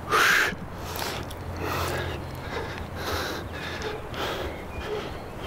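A man breathing hard in short, sharp breaths, about one a second, while balancing on a highline; the loudest comes just after the start. A low steady hum lies underneath.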